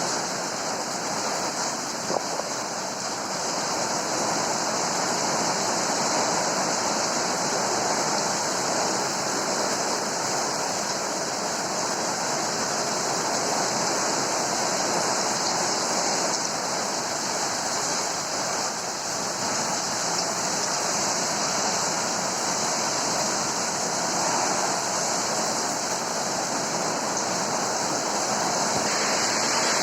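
Heavy rain falling steadily in a rain-and-wind storm, an even rushing hiss, with one brief knock about two seconds in.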